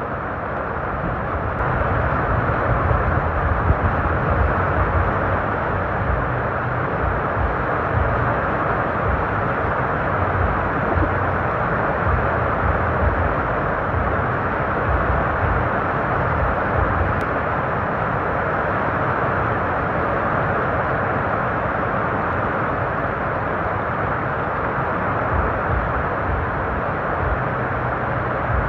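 Strong wind blowing over the microphone: a steady, noisy rush with a flickering low rumble from gusts buffeting the mic.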